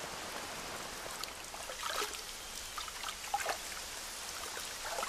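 Light rain falling steadily in the rainforest, with a few louder drops now and then.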